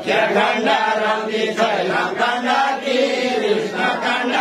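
A group of men singing a Deuda, the far-western Nepali folk song, together: several voices on one line of melody, without a pause.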